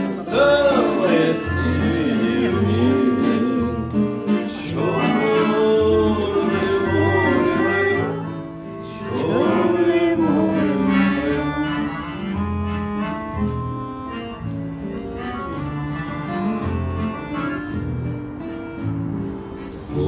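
Button accordion and acoustic guitar playing an instrumental passage between the verses of a song, with steady bass notes under a wavering melody. A voice sings along softly at times.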